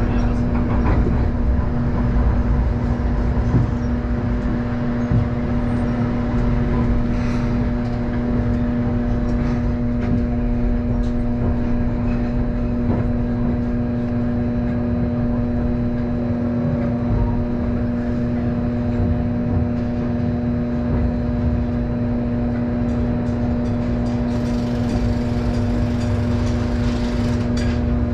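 Hakodate city tram running along the street, heard from inside the car: a steady low rumble of wheels and running gear with a constant hum. A hiss comes in near the end.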